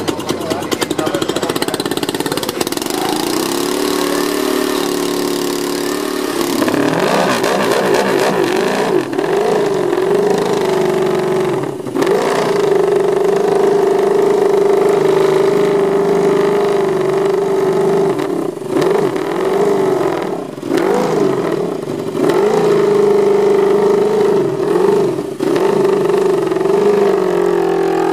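Ducati Desmosedici MotoGP V4 race bike engines running while warming up, held at a steady fast idle and blipped in repeated quick revs, with short drops in level between the blips.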